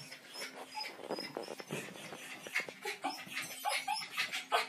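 A small terrier whining and yipping in short, high calls while straining after a balloon out of its reach, the calls coming faster and louder in the second half.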